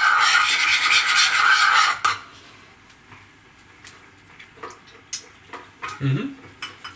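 Spoon stirring salad dressing fast in a bowl, a quick rhythmic scraping that stops about two seconds in; then a few light clinks of the spoon.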